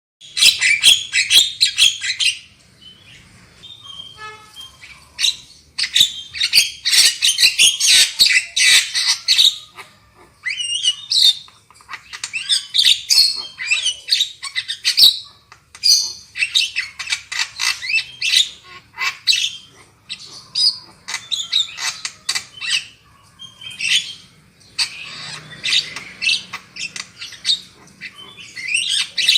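Javan myna (jalak kebo) singing: bouts of rapid, harsh chattering and squawking notes, broken by short pauses.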